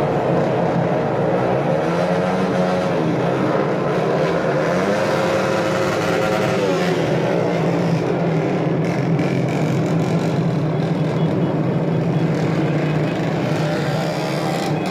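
Engine running loudly at a steady pitch, rising and falling a few times as it is revved.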